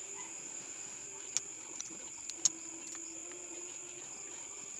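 Crickets chirping steadily in the background, with two sharp clicks, about one and a half and two and a half seconds in, from engine parts being handled during piston assembly.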